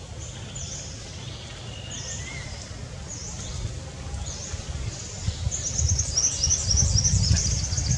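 Wild birds calling: short, high, down-slurred chirps about once a second, then from about five and a half seconds a louder, rapid high chattering trill. Under them is a low rumble that grows toward the end.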